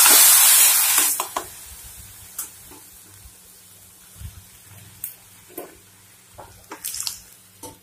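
Loud sizzle as boiled black gram dal hits a tempering of hot mustard oil in a kadai. It dies down within about a second and a half to a low hiss, with a few light clicks of stirring.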